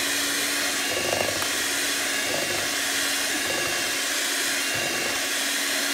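Electric hand mixer running steadily, its beaters whipping cream in a bowl: an even motor whir with a constant hum.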